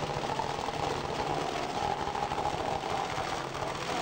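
Top-fuel dragster's engine idling with a steady, fast clatter.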